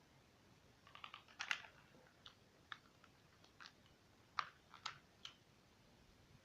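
Faint, irregular small clicks and rattles of the HA-120 airsoft gun being handled, a short cluster about a second in and then single clicks every half second or so.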